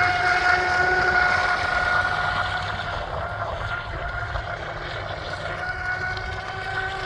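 Pro Boat Valvryn R/C boat's brushless electric motor running at speed: a steady high whine that fades somewhat in the middle and comes back louder near the end.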